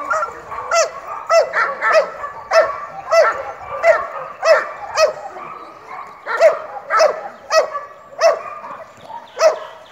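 Belgian Malinois barking steadily and repeatedly at a decoy in protection training, about two sharp barks a second.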